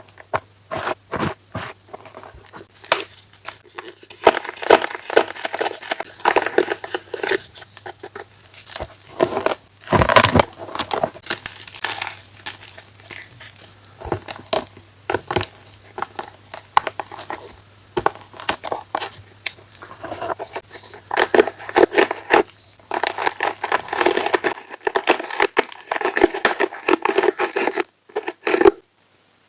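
Blocks and chunks of chalk being crushed and crumbled: a dense, irregular run of sharp crunches and crackles, with a brief pause near the end.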